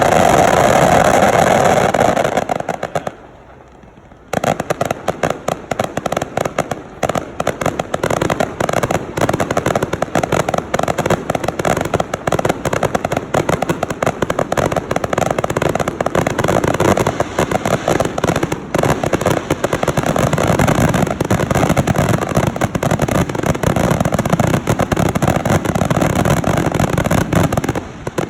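Fireworks going off. A loud burst opens, and after a brief lull about three seconds in comes a long, dense run of rapid crackling and popping.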